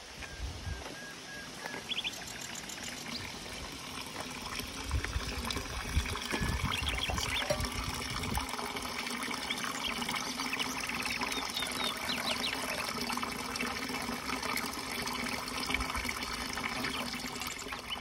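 Water from a stone roadside fountain's spout trickling steadily into its trough, with small birds chirping now and then.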